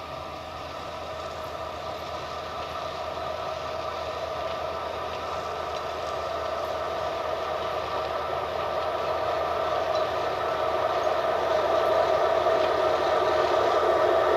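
HŽ electric locomotive approaching on the line, a steady hum with several tones that grows gradually louder as it nears.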